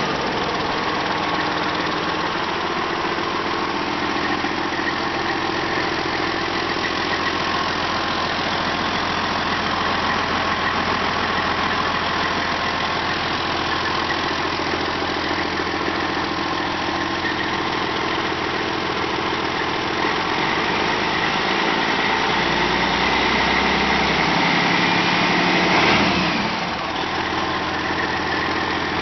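Detroit Diesel Series 60 14.0L inline-six turbodiesel (DDEC V) idling steadily. About two-thirds through, its speed rises slowly over several seconds, then drops sharply back to idle about three seconds before the end.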